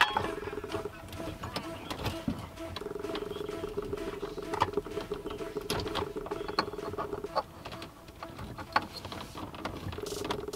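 Scattered light clicks and knocks of parts and tools being handled, over a steady hum that drops out twice.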